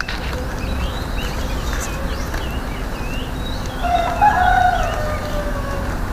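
A rooster crowing once about four seconds in: a long call that rises, holds, then trails off. Short high chirps come and go throughout.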